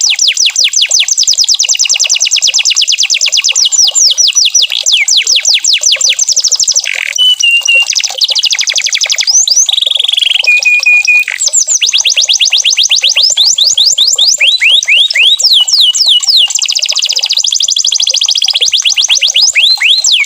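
Canary singing: fast trills of rapid, high, down-sweeping notes, broken about a third of the way through by a few short held whistles before the trilling resumes.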